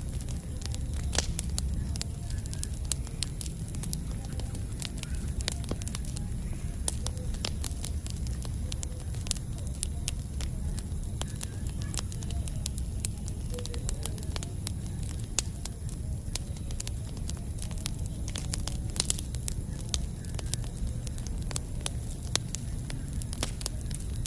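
Campfire burning steadily, with a low rumble of flames and frequent sharp crackles and pops of burning wood at irregular intervals.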